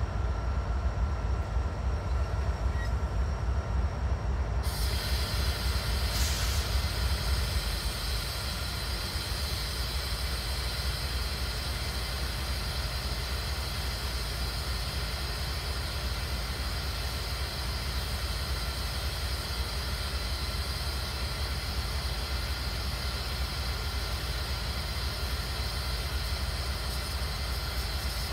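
Diesel locomotive idling with a steady low rumble. About four and a half seconds in, a steady hiss starts suddenly and keeps on alongside it.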